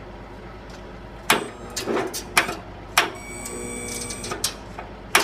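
Clicks and knocks, then about a second and a half of a riding lawnmower's electric starter whirring, cranking without the engine catching, then more clicks.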